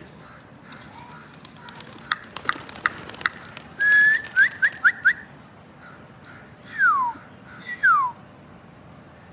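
A pigeon keeper whistling to his flying pigeons, after a run of sharp clicks. First one held whistle, then a quick string of short whistles, and near the end two long whistles that slide downward in pitch.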